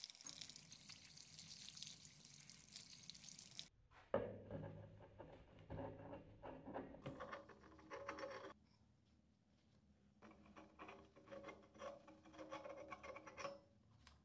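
Tap water running and splashing over a steel bike fork tube, cutting off sharply a few seconds in. Then a cloth rubbing on the metal tube and the tube being handled, in two spells with a short pause between.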